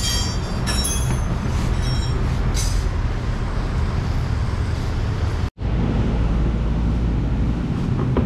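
Steady low mechanical rumble of workshop machinery or a running engine, with several short hissing bursts in the first three seconds. The sound cuts out for a moment a little past halfway, then the rumble carries on.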